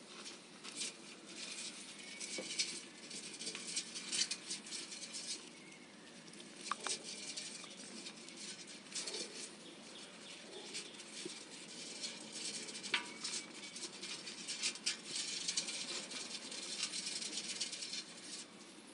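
A hamster scrabbling at the wall of its clear plastic enclosure and rustling through its bedding: an irregular run of light scratches and crackles, with a few sharper clicks.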